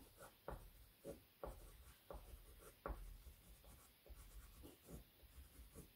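Faint scratching of a black oil pastel on grainy sugar paper, in short repeated strokes about two a second.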